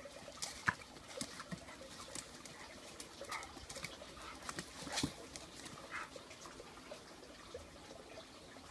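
Staffordshire bull terriers moving about on stone patio paving: scattered light claw clicks and scuffs on the slabs, with a few faint dog snorts.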